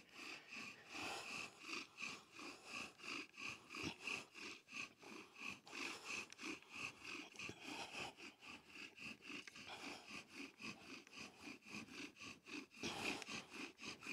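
Bow drill spindle spinning in a wooden hearth board under fast back-and-forth bow strokes, a faint rhythmic squeaking rasp about three times a second. It is the final fast run to make an ember; the dark dust and heavy smoke show the friction is hot enough to form a coal.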